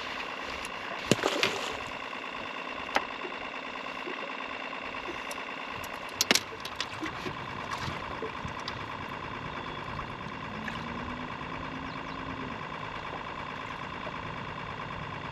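A motor running steadily with an even hum, with a few sharp clicks and knocks about a second in, near three seconds and near six seconds.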